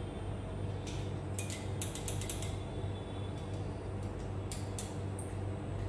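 Steady low hum of an LCD panel laser repair machine, with light clicks from its controls: a quick run of clicks about a second and a half in, then a few single ones.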